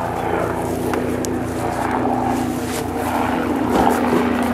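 A steady engine drone with a low held tone.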